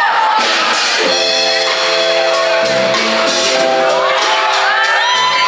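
Live funk band playing: horns and keyboard holding chords over bass and drums, with cymbal strokes at a steady beat and a sliding melodic line near the end.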